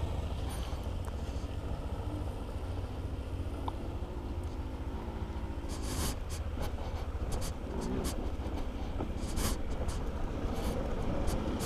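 Motorcycle riding downhill: wind rumbling on the microphone with a small engine running faintly underneath, and a scatter of short sharp clicks in the second half.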